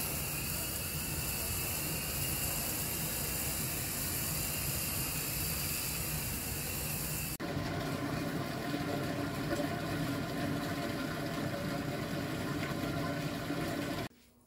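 Water jetting from a hose-fed spray lance with a cleaner bottle onto the tiled wall of a drained swimming pool, a steady hiss. About seven seconds in it changes abruptly to another steady rushing sound with a low hum through it, which stops suddenly near the end.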